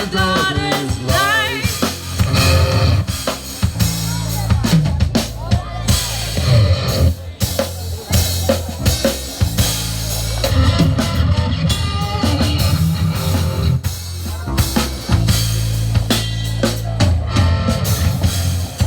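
Instrumental passage of a rock song: a drum kit beating steadily with kick drum and snare over a low bass line, without vocals.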